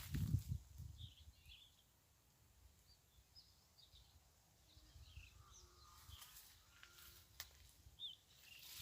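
Faint, scattered chirps of small wild birds, with a low rumble in the first second.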